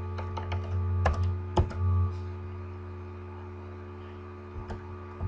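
Computer keyboard keys pressed in irregular clicks, several in the first two seconds and a few more near the end, over a steady electrical hum.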